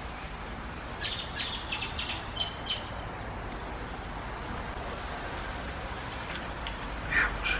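A bird chirping, a quick string of short high notes about a second in, over a steady background hiss.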